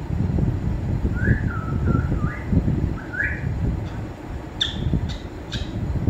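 Grey parrot giving a run of short rising whistles, then three sharp clicking chirps near the end, over a steady low rumble.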